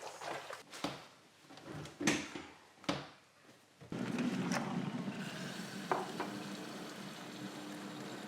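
Kitchen cookware sounds: a few knocks and clatters of pans and utensils, then from about four seconds in a steady hiss with a low hum underneath.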